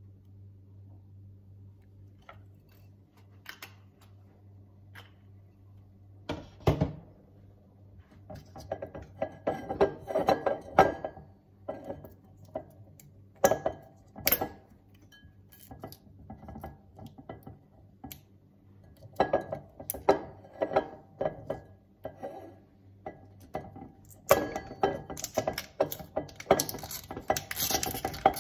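Kitchen clatter: irregular clinks and knocks of a glass bowl, a bottle and utensils being handled on a counter. One heavier knock comes about seven seconds in, and the clinks come thick and fast near the end.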